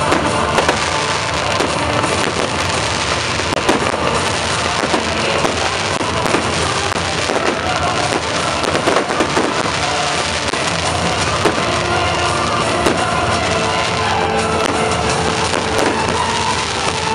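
A fireworks display, with many quick bangs and crackles from fountains and aerial shells mixed with loud music.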